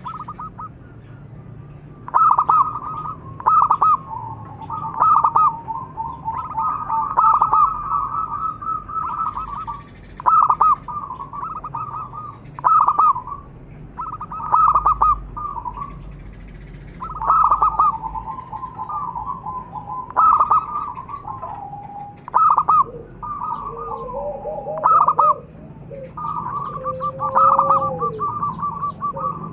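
Zebra dove (perkutut) cooing: its rapid, stuttering, rolling coo repeated in short phrases with brief gaps between them.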